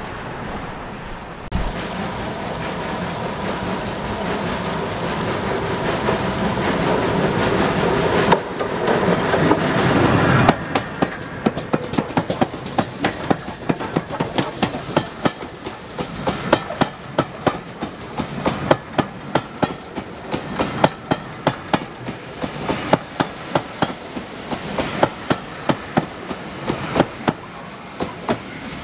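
Double-headed steam train passing close by: two steam locomotives and their coaches. A dense running noise builds over the first ten seconds or so, then gives way to a fast, even clickety-clack of wheels over rail joints that goes on as the coaches roll past.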